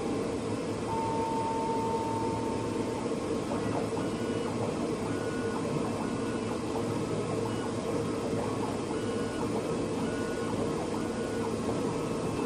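YINGHE 5030 flatbed cutting plotter running a cut, its air pump giving a steady hum, with short high motor whines coming and going as the cutting head moves.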